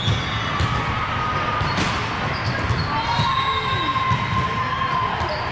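Many rapid, irregular low thumps, with drawn-out squeaking tones that bend slightly in pitch through the middle and second half.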